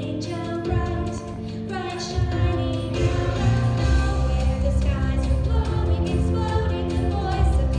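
A woman singing a Christmas carol into a microphone over instrumental accompaniment with sustained low notes.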